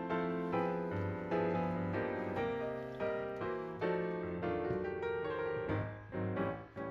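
Background piano music, with notes struck in a steady flowing series, each fading away after it is played.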